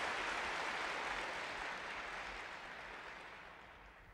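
Audience applauding, an even patter of many hands clapping that fades away gradually through the second half.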